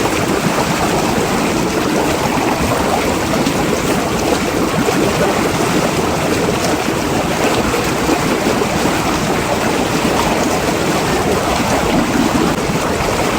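Steady, loud rush of churning water, even and unbroken throughout.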